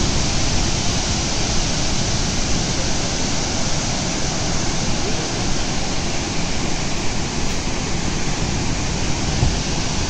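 Water from the open crest gates of a dam spillway rushing down the dam face and crashing into the river below, a steady unbroken rush of falling water.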